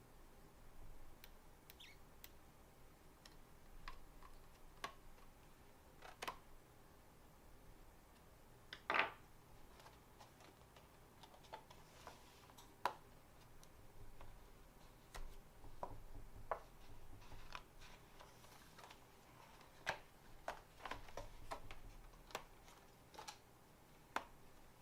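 Scattered small clicks and taps of a Dell G7 laptop's case and parts being handled during a memory upgrade, with one sharper knock about nine seconds in and a run of quicker clicks later on.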